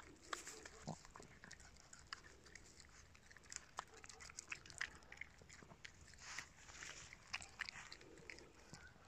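A small dog chewing, with faint irregular clicks and crunches of its teeth.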